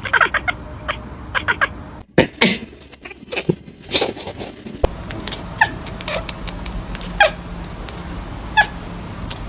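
Cats meowing: short calls that fall in pitch, several in quick succession in the first few seconds, then one every second or so.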